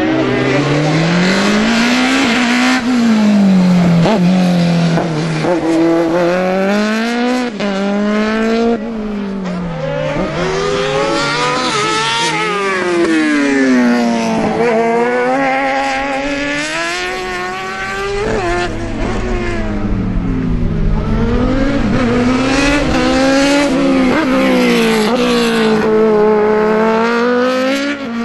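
Open-cockpit sport-prototype race car's engine revving hard through the gears, its pitch climbing under acceleration and dropping back under braking, over and over through the corners of the circuit.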